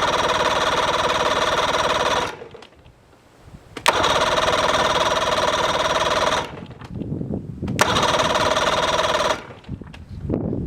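Electric starter on a Mercury outboard cranking the motor in three bursts. The second and third bursts each begin with a sharp click. Between bursts there is a quieter low rumble, and the engine has not yet caught.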